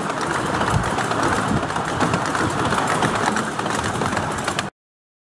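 Carriages of a 7¼-inch gauge miniature railway train running along the track, a steady rattle and clatter of wheels and coaches heard from on board the rear carriage. The sound cuts off abruptly near the end.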